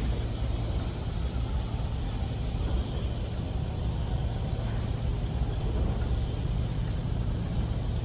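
Steady low outdoor rumble with an even hiss above it, with no distinct events.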